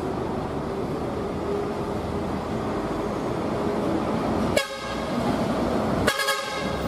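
Steady engine and road noise of a passing bus, then two horn blasts: a short one about four and a half seconds in and a longer one near the end.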